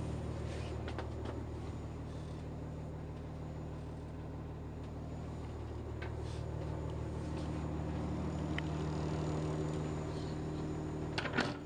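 Steady low hum of the barge's DAF 1160 diesel engine idling, heard inside the cabin, with a few faint clicks and a short knock near the end.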